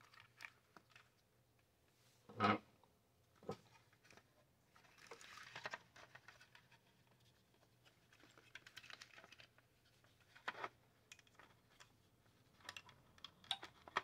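Hard plastic heater housing parts being handled and fitted together: scattered light knocks and clicks, the loudest about two and a half seconds in, with a rubbing scrape around five to six seconds in.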